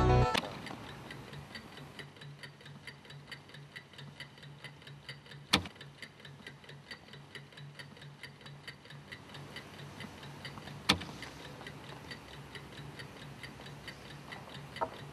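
Mechanical analog chess clock ticking fast and evenly over a low steady hum, with two sharp clacks about five seconds apart.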